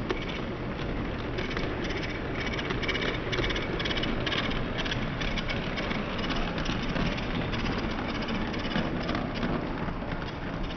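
OO gauge model train running past on the layout track: the test coaches' wheels rumble steadily on the rails with rapid, irregular clicking over the rail joints and points.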